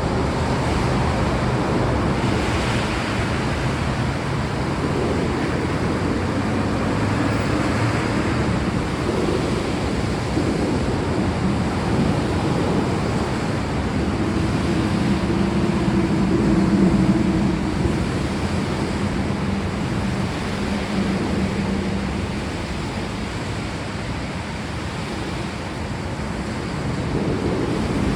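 Steady heavy rain, with a low rumble swelling and fading in the middle.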